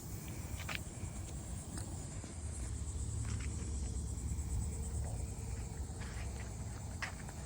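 Insects trilling steadily in a fine, fast-pulsing high chorus, over a low rumble and a few scattered clicks.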